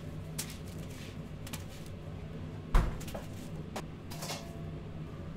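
A single loud knock a little under three seconds in, among a few lighter clicks and taps, over a steady low hum.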